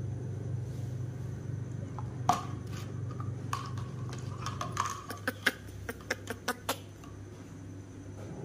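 A hungry baby monkey sucking on its own fingers, making a string of short wet smacking clicks that come thickest a few seconds in. A steady low hum runs underneath.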